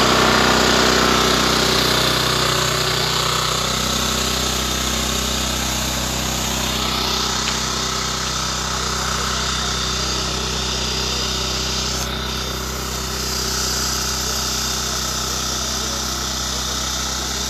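Heavy machinery at a railway work site: an engine running steadily, under a constant noisy din.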